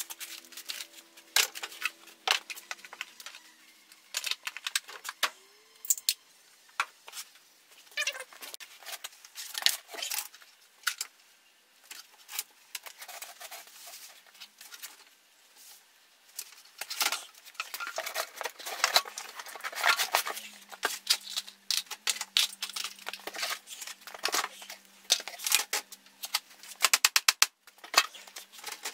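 Tools and engine parts clinking and knocking on a sheet-metal workbench as it is cleared by hand, with irregular clatters and a quick run of clicks near the end.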